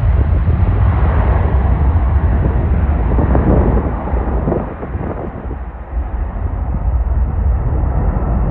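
Commercial jet airliner's engines rumbling loudly as it goes by, the sound deep and low, its higher frequencies slowly fading away.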